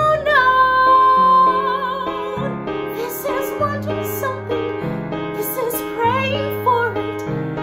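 A woman singing a legit musical-theatre ballad over piano accompaniment. She holds one long note with vibrato for about two seconds, then sings on in shorter phrases over the chords.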